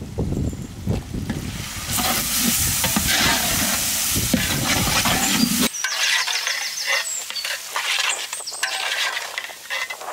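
A metal ladle stirring and scraping a thick spiced masala of onions, tomatoes and green chillies around a large metal pot, with the oil sizzling as it fries. A low rumble under the first half cuts off abruptly about halfway through.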